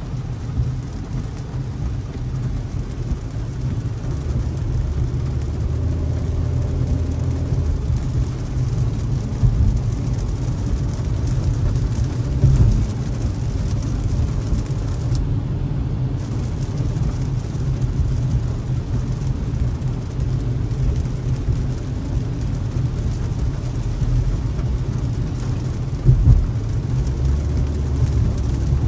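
Car cabin noise while driving on a wet highway in heavy rain: a steady low rumble of tyres on wet pavement, with a hiss of rain and spray. There are a couple of brief thumps, about midway and near the end.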